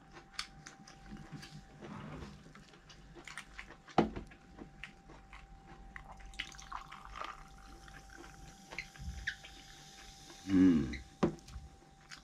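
Close-miked wet chewing and mouth clicks of a person eating barbecue duck, with a sharper knock about four seconds in and a short voiced hum near the end.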